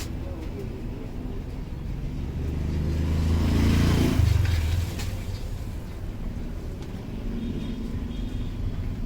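A motor vehicle's engine passing close by: its low hum builds over about two seconds, peaks about four seconds in, then falls away into a steady background rumble.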